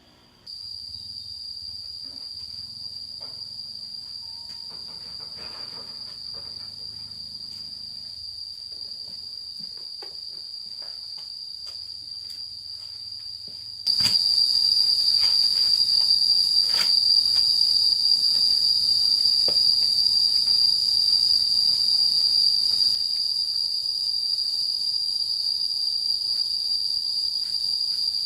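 Steady, shrill insect chorus with a continuous high-pitched drone. It jumps abruptly louder about halfway through and eases down a little near the end, with a few faint clicks and knocks underneath.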